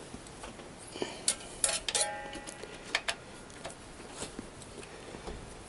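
Metal hand tools clicking and clinking against the motorcycle's footrest hanger bolts and frame. A cluster of sharp clinks about two seconds in ends in a brief metallic ring, and a few lighter clicks follow.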